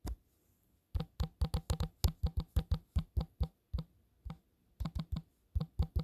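Typing on a smartphone's on-screen keyboard: a quick run of taps, about four a second, with a short pause a little past the middle.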